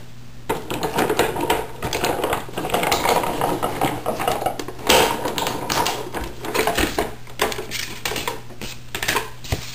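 Hand-cranked Cuddlebug embossing machine feeding a stack of plastic plates, with the card in an embossing folder, through its rollers: a run of irregular mechanical clicks and clatter.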